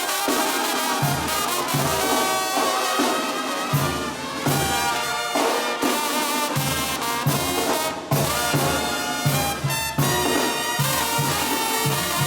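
Live banda brass band playing, with trumpets and trombones over a steady, pulsing low bass beat.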